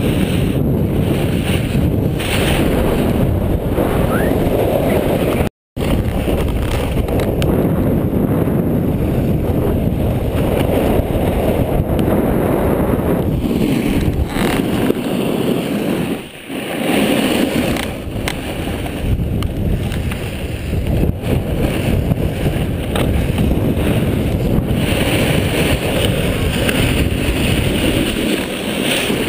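Wind rushing over a snowboarder's action-camera microphone while riding downhill, a loud steady rumble. The sound cuts out completely for a moment about six seconds in, dips briefly around sixteen seconds, and falls away at the end as the rider slows to a stop.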